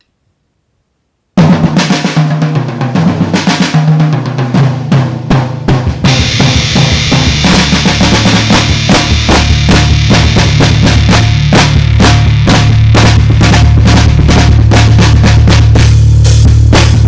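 A band playing: a drum kit with a steady low bass line comes in suddenly about a second and a half in, and around six seconds the sound thickens as more instruments join.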